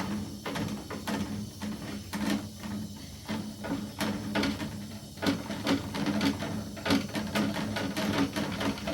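Quick, irregular taps and clicks, several a second, over a low steady hum.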